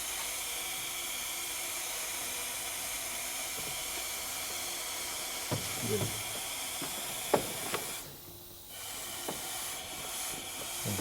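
Compressed air hissing steadily out of a leaking boost hose on a Mercedes ML 280 during a pressure test of the charge-air system, the sign of a boost leak at a hose seal ring. The hiss dips sharply about eight seconds in, then comes back.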